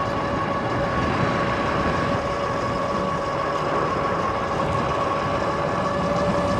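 P-51 electric bike riding at a steady speed: a constant motor whine over a steady rush of wind and tyre noise.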